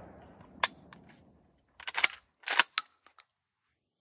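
The echo of a 12-gauge shotgun blast dies away over the first second. Then come short, sharp clicks and clacks in small clusters through the middle, the loudest about two and two and a half seconds in.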